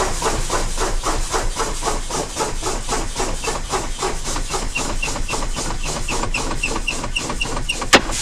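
Truck air brakes being pumped down by rapid service-brake applications: a quick train of air puffs, about four a second. From about three seconds in, a short high chirp comes with each puff. Near the end comes one sharp pop: the trailer air supply and parking brake valves popping out as the air pressure drops into the 20 to 45 psi range, applying the spring brakes.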